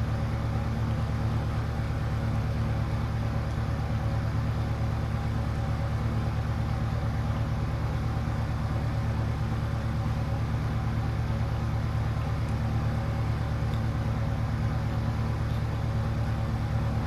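Steady low hum with a faint buzz.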